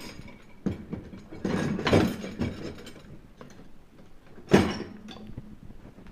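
A dishwasher's removable plastic utensil caddy being handled in its rack: rattling and scraping of plastic against the wire rack, with a sharp knock about four and a half seconds in.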